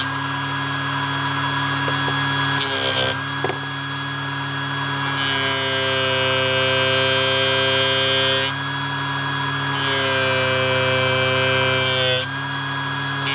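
Small bench polishing machine's electric motor running steadily with a high whine and hum, its polishing wheel charged with GOI paste working a knife blade. The tone and texture shift several times as the blade is worked against the wheel.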